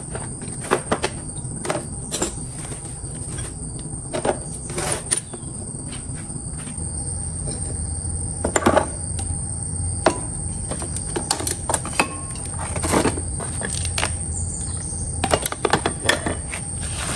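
Metal hand tools and a tool case being put into a plastic crate: scattered clinks, knocks and rattles, some in quick clusters, over a steady high-pitched whine.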